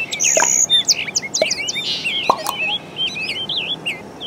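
A chorus of many small birds chirping and calling over one another, with quick, short, overlapping calls.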